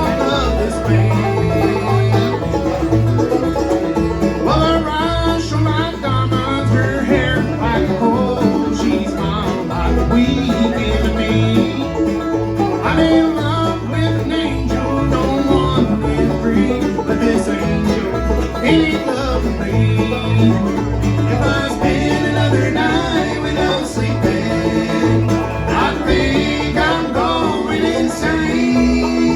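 A bluegrass band playing a song, with banjo and guitar over a steady bass line.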